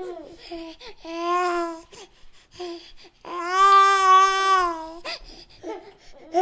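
Baby cooing and babbling: a few short coos, then one longer drawn-out coo, the loudest, about halfway through, and more short coos near the end.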